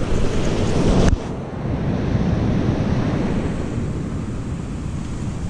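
Ocean surf and wind buffeting the microphone: a steady rushing noise, heaviest in the low end, that drops off abruptly about a second in and then goes on more softly.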